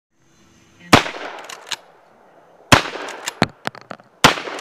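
Three shotgun blasts about a second and a half apart, each trailing off in a fading echo with a few smaller sharp cracks after it.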